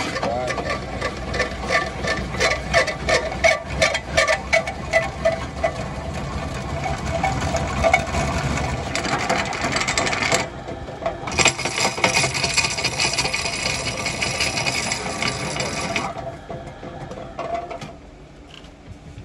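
Sheet-metal work on car silencers: a run of sharp metallic knocks, several a second, with a ringing tone, then a steady bright hiss for about five seconds that cuts off suddenly.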